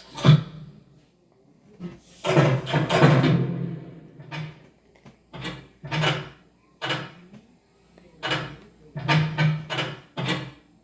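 A rapid series of cartoon door sound effects: doors and latches opening and banging shut, about a dozen short hits with brief gaps, and one longer one lasting about a second and a half.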